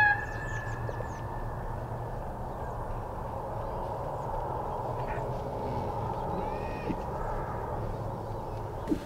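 A coyote howl from an electronic predator caller cuts off in the first instant. Steady open-air background follows, with faint bird calls and two small knocks in the last few seconds.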